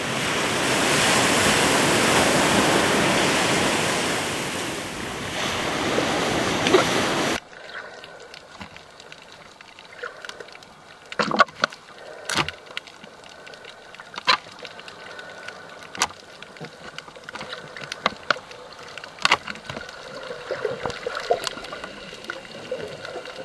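Small waves breaking on a beach, a steady loud rush of surf, cut off abruptly about seven seconds in. Then underwater sound takes over: a quiet hiss with scattered sharp clicks and crackles.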